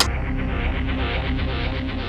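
Background film score music with a fast, steady rhythmic pulse.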